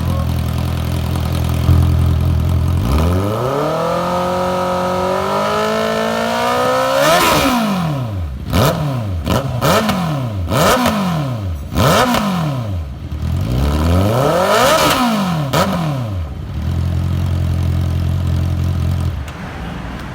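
Honda CB650R inline-four motorcycle engine idling, then revved in one long climb. A string of quick throttle blips follows, each rising and falling sharply, and the engine settles back to idle near the end. It is a stationary exhaust sound check.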